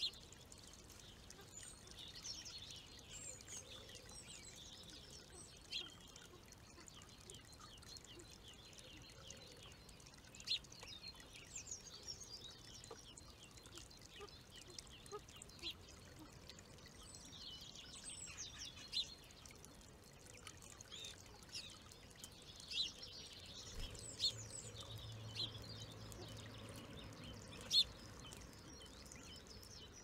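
Small birds chirping and whistling, with a few short, sharper calls standing out now and then, over a steady trickle of water spilling from a stone bird bath's upper basin into the lower one.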